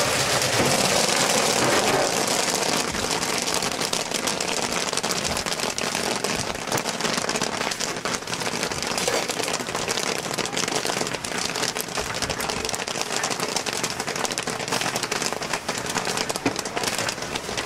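Kettle corn popping in a large kettle: a dense, continuous crackle of kernels bursting over a sizzling hiss, the hiss loudest in the first couple of seconds.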